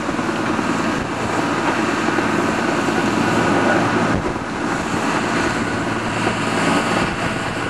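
Blustery wind buffeting the microphone with a steady crackle, over the continuous drone of diesel earthmoving machines, a Volvo tracked excavator and a crawler dozer, working in the cutting.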